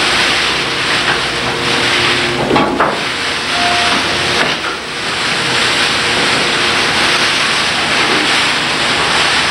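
Loud, steady hissing rush of noise, with faint steady tones beneath it.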